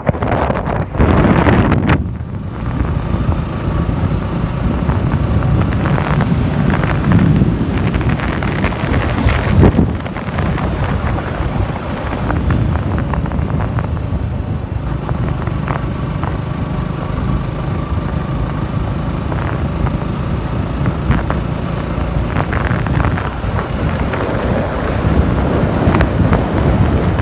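Wind buffeting the microphone over the steady running of a motorcycle on the move, a loud uneven low rumble with a faint engine hum.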